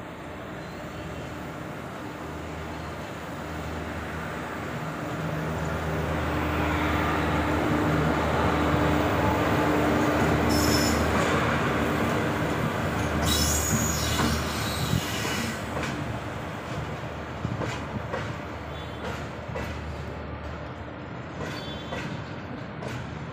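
WAG7 electric locomotive approaching and passing with a steady hum, growing louder to a peak near the middle. Empty flat wagons follow, rolling by with brief high-pitched wheel squeals and then sharp clicks of wheels over rail joints.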